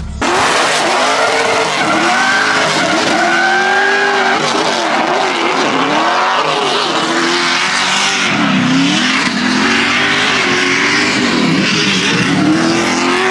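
The turbocharged LS V8 of a Nissan 240SX drift car revs up and down over and over while its rear tyres squeal and skid through a drift.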